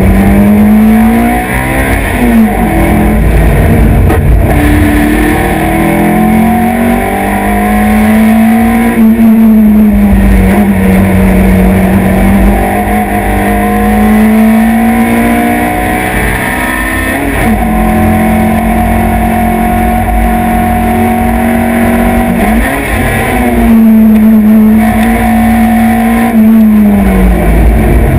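Mazda hillclimb race car's engine heard onboard, pulling hard up the course. Its note rises and falls through the corners, broken by several quick gear changes, over steady road and wind noise.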